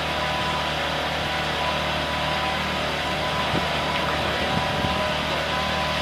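A catamaran's engine running steadily under way, a constant low drone that holds even throughout.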